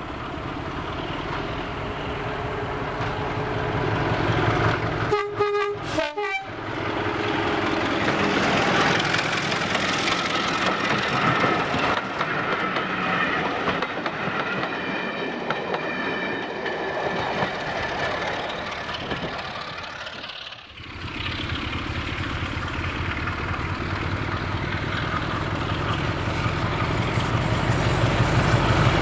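Diesel train horn sounds two short blasts about five seconds in, then the train passes close with its wheels clattering over the rail joints. After an abrupt cut, Class 33 locomotive 33063's Sulzer diesel engine works hard as it approaches, growing louder toward the end.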